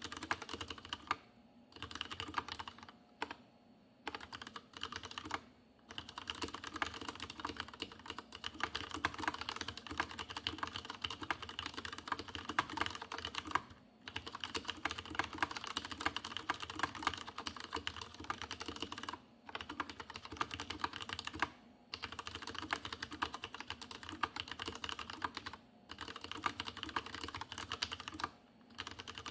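Leopold FC750R tenkeyless mechanical keyboard with Cherry MX Red linear switches being typed on quickly and continuously, a dense run of key clacks. The typing breaks off for short pauses every few seconds. The case has a pronounced hollow resonance.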